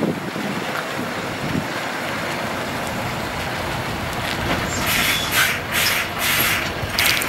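Mercedes 4x2 tractor unit reversing a steel tipper semitrailer, its diesel engine running steadily at low speed. From about four and a half seconds in come a series of short hissing bursts of air from the brakes as the rig slows.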